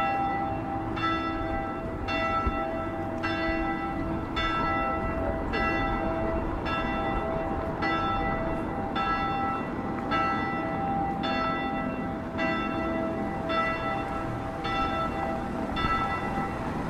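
A single bell tolling steadily, struck about once a second on the same note, each stroke ringing on into the next, over a low background rumble.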